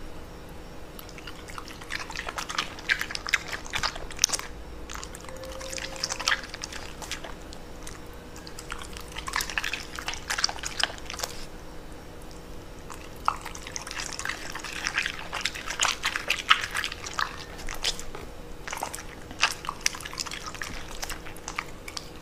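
A pet eating, with wet smacking and clicking mouth sounds coming in irregular clusters.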